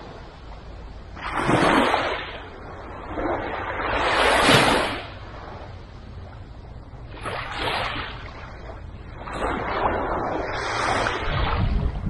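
Small, calm waves breaking and washing up a sandy beach, each wash of surf swelling and fading, about one every three seconds, over a low steady rumble.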